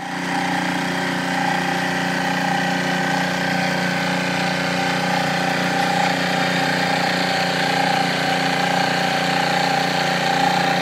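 LEHR propane-fuelled four-stroke outboard motor running steadily under way, its engine note holding a constant pitch with a prominent high whine.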